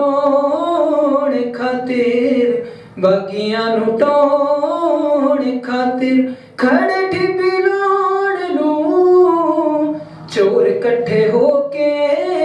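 A singer performing a Punjabi song in long held notes that waver in pitch, in phrases of a few seconds with brief pauses between them.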